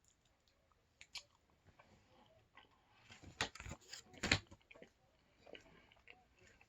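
Close-up eating sounds: a person chewing pierogi, with small wet mouth clicks and two louder smacks about three and a half and four and a quarter seconds in.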